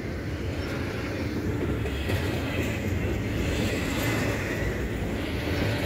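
Double-stack intermodal well cars of a BNSF freight train rolling past on the rails: a steady rumble of wheels on track with a hiss of wheel noise above it.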